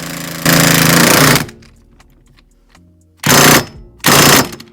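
Cordless impact wrench hammering on the steering hub's mounting bolt in three bursts: one lasting about a second, then two short ones near the end. The owner takes the gun to be weak because the cold has drained it.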